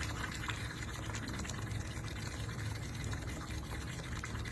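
Air blown through a drinking straw into a glass of water, bubbling steadily through one long breath out, as a breathing exercise.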